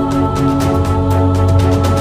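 Background music with a steady beat and held electronic tones.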